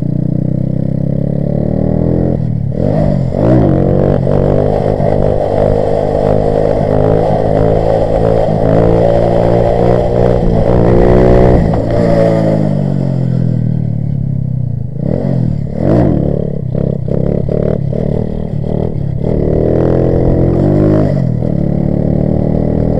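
Grom-clone minibike's single-cylinder four-stroke engine revving hard as the bike is ridden, its pitch climbing and falling through the throttle and gears. The revs are held high for several seconds, then drop about halfway through, blip a few times and climb again near the end.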